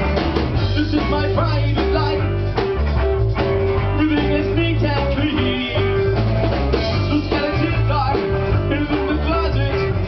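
A live rock band playing amplified: electric guitar, electric bass and drum kit, with a male voice singing over them.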